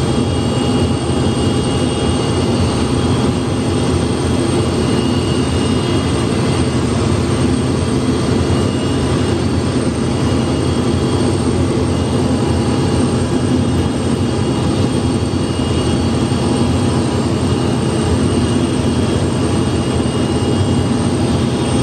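Steady turbine noise from an Antonov An-124-100 standing on the ground as its nose visor rises: a high whine over a constant low rumble.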